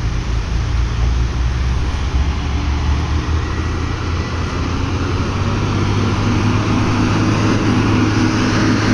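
Diesel engines of a line of laden trucks approaching with a steady low drone. The lead truck, a Mitsubishi Fuso Fighter, grows louder toward the end as it draws near, over a haze of road noise.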